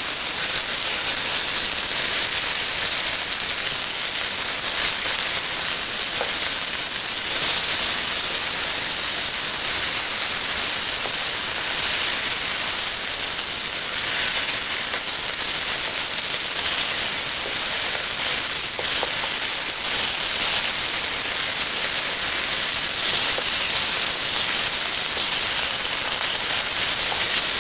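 Chicken pieces sizzling steadily in hot oil in an electric wok as they are stir-fried.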